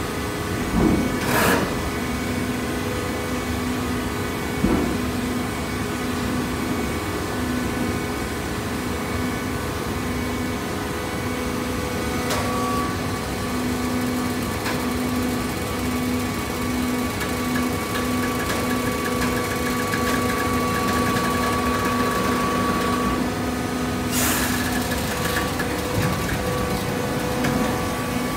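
Horizontal hydraulic baler running: a steady machine hum with a whine over it, and a few short knocks.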